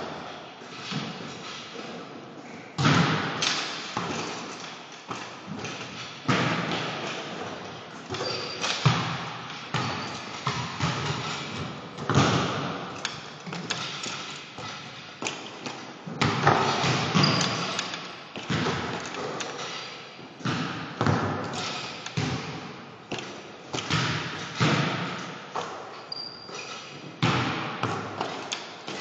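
Basketballs bouncing on a hardwood gym floor and striking the rim and backboard: a string of loud thuds every second or two, each echoing around the gym.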